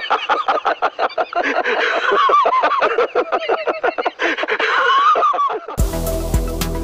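Two men laughing heartily in quick, repeated ha-ha bursts. About six seconds in, the laughter stops and electronic background music with a steady beat cuts in suddenly.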